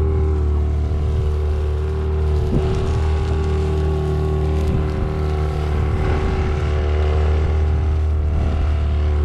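Boat motor running steadily with a constant low hum.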